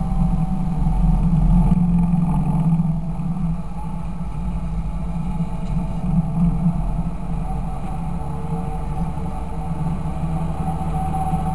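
Fendt 926 Favorit tractor's six-cylinder diesel engine running steadily with a deep drone, a little louder for the first few seconds before settling to an even note.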